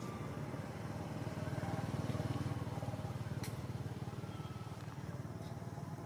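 An engine running, a low pulsing rumble that swells about two seconds in and eases off, with a single sharp click a little after the middle.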